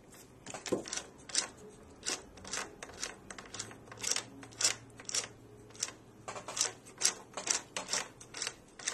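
Feed handwheel of a 7x10 mini lathe being turned slowly by hand, its gearing giving a run of light metallic clicks, about two a second.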